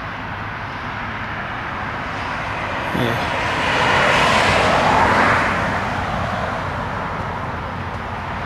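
A car passing on a rain-wet road: tyre hiss swells about four seconds in and fades away over a couple of seconds, above a steady background of outdoor noise.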